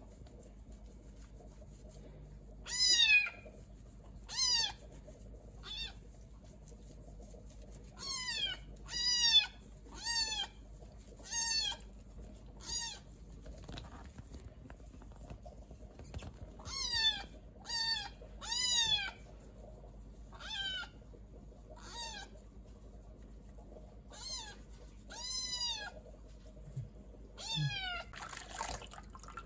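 A kitten meowing over and over: about twenty short, high-pitched meows, each rising then falling, coming singly or in quick pairs with short pauses between.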